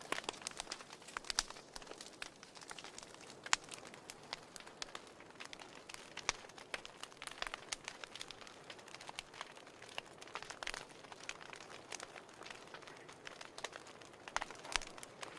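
Wood fire burning in a fireplace, crackling with irregular sharp pops and snaps over a soft steady hiss.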